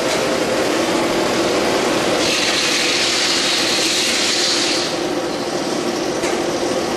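Steady, loud machinery noise of a honey extraction room: the extractors and uncapping line running, with a hissing stretch about two seconds in that lasts a couple of seconds.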